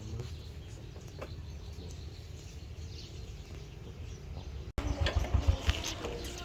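Faint bird chirps over a steady low rumble outdoors. About three-quarters of the way through, the sound breaks off abruptly and is followed by louder crackling and knocks mixed with short bird notes.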